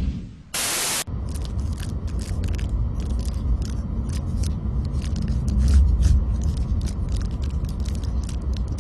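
Steady low rumble of an airliner cabin, with quick irregular crackles over it. A short hiss comes about half a second in.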